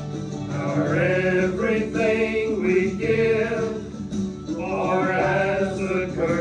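A singer sings a song over instrumental accompaniment. The voice comes in about half a second in and breaks off briefly around the middle before going on.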